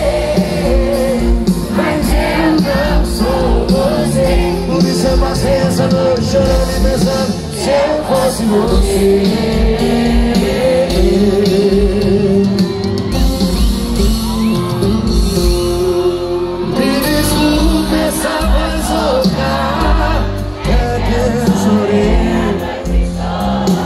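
Live sertanejo band music played through a large concert sound system, with sung vocals over a steady kick-drum beat.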